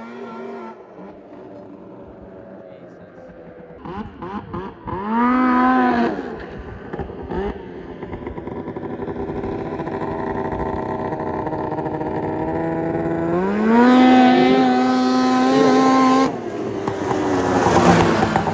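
Snowmobile engine revving: a few short blips about four to six seconds in, then a rise to high revs held for a couple of seconds, a drop back, and another rev near the end.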